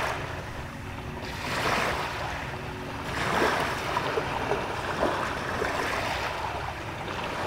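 Small waves lapping over sand and pebbles at the water's edge, swelling louder a couple of times, with a low wind rumble on the microphone.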